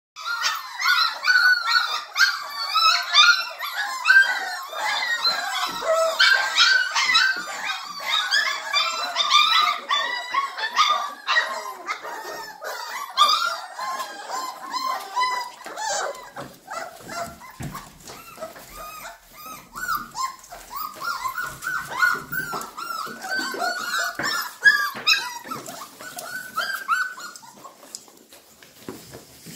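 A litter of Llewellin setter puppies yelping, yipping and whining all at once in excitement for their weaning meal, with scattered clicks and knocks among the calls. The din is densest in the first half and thins out toward the end.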